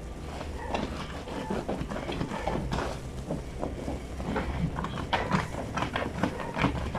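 Fleece sheets being washed by hand in a granite laundry sink: many short, irregular wet sounds of the fabric being worked against the stone in soapy water, busier in the second half, over a steady low hum.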